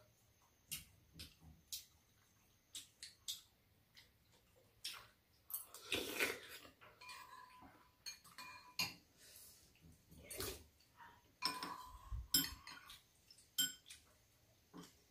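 Metal spoons and chopsticks clinking and scraping against ceramic bowls and a metal tray while soup is eaten, in short irregular clicks, some with a brief metallic ring.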